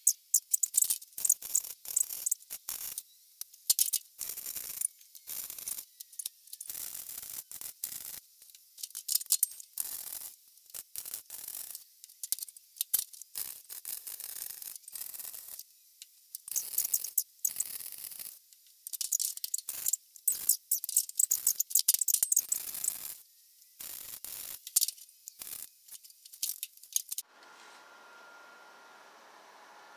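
MIG (wire-feed) welder arc crackling in short bursts with brief pauses between them, as a row of stitch welds is laid along a steel inner rocker panel. The welding stops near the end, leaving a faint steady hiss.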